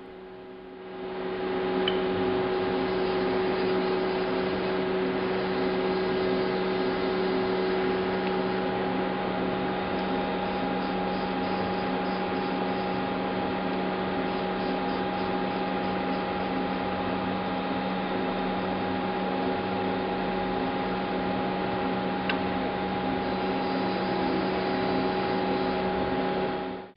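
Daewoo Lynx 210LC CNC turning center running, a steady mechanical hum with several held tones while its turret brings a tool toward the tool presetter arm. The hum fades in over the first second and cuts off suddenly at the end.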